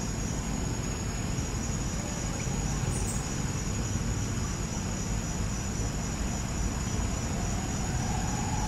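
Steady forest ambience: insects droning on one unbroken high tone, over a low, even rumble.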